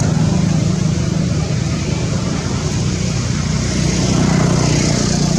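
Steady, loud background rumble with a hiss over it, holding level throughout.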